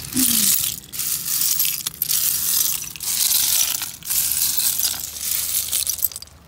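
Crunching and clinking of broken seashells and beach pebbles being disturbed, in repeated crunches a little under one a second.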